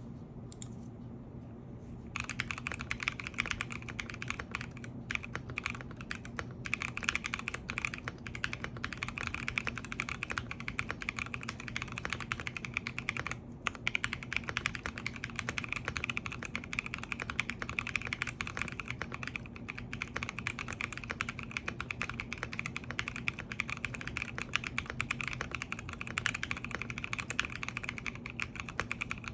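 Typing on a GMK67 mechanical keyboard with Blue Velvet linear switches: fast, continuous keystrokes begin about two seconds in, with one brief pause around the middle. A low steady hum runs underneath.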